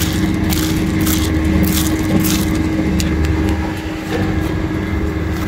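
A motor running steadily, giving a low drone with one constant hum, with scattered crackles and clicks over it.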